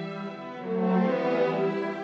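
Background music: slow, sad-sounding bowed strings (violin and cello) holding long notes.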